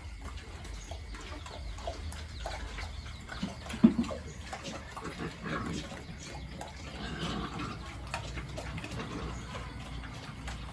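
Pigs grunting and shuffling in a pen, with scattered clicks and knocks and one loud short grunt or knock about four seconds in.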